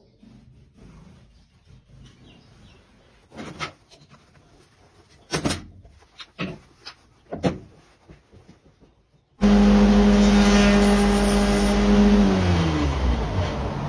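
A few short knocks, then an electric grinder switches on suddenly about nine seconds in and runs with a loud steady hum and hiss. Near the end its pitch drops.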